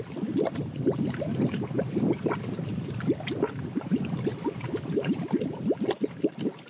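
Cold sulfur spring pool burbling, heard up close: volcanic gas bubbling up through water that is not hot, a rapid, irregular run of small bubbles plopping at the surface.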